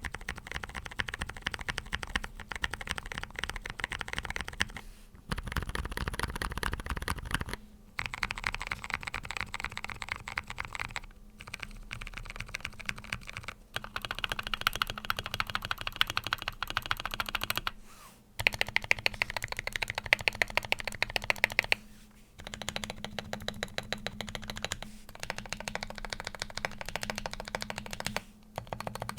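Fast typing on a GK61 aluminium 60% mechanical keyboard with lubed Zealios 62g tactile switches and MDA Big Bone keycaps. Rapid keystrokes come in runs of a few seconds, broken by brief pauses.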